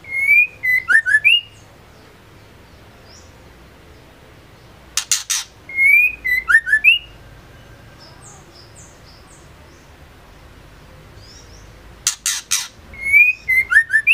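Female white-rumped shama calling: a quick run of harsh clicks, then a short rising whistle and a few quick falling notes. The same phrase comes three times, about every six seconds, with faint high chirps between.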